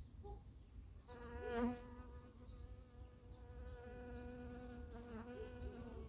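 Honeybees buzzing in flight around a zinnia flower: a steady wingbeat buzz starts about a second in, with a second, lower-pitched buzz coming and going. It is loudest about a second and a half in, as a bee passes close.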